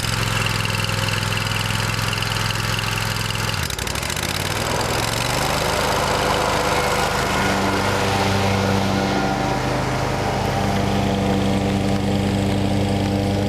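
Kawasaki FX850V V-twin engine on a Wright stander zero-turn mower running just after a cold start. It dips briefly about four seconds in, then settles at a higher, steady speed; the engine starts right up and runs as it should.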